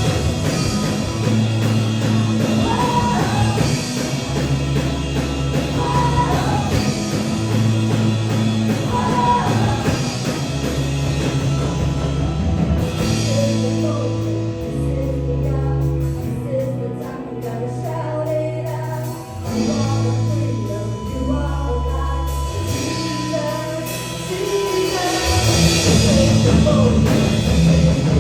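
Worship song with singing over a band: long held bass notes changing every second or two under keys. The accompaniment thins out in the middle, then builds back up, louder and fuller, near the end.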